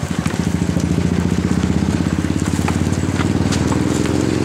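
A small engine running steadily close by, with a rapid, even pulse, and scattered light clicks and rustles over it.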